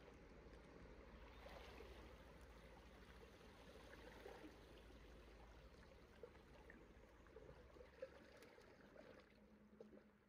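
Faint sea water lapping and gurgling against shoreline rocks, with small scattered splashes over a low steady rumble.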